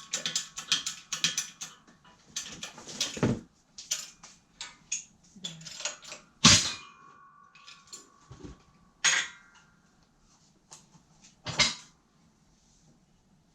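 Quick clatter of metal parts, then four heavy knocks on metal a few seconds apart, the second leaving a short ringing tone: blows to free the brake rotor from the old wheel hub.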